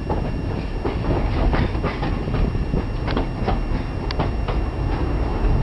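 Narrow-gauge train running slowly over pointwork and rail joints: a steady low rumble from the wheels with irregular sharp clicks and clacks, several a second, the sharpest about three to four and a half seconds in.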